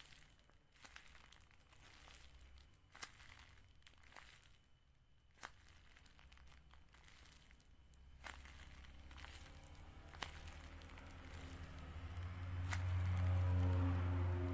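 Homemade tape-covered paper squishy crinkling softly with scattered faint crackles as it is squeezed and pressed. Low background music swells in over the last few seconds.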